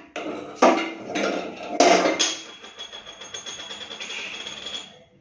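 A hand-held gas lighter banged several times against a stainless steel gas stove top, with sharp metallic clanks in the first two seconds. After the last blow a high metallic ringing hangs on for about three seconds.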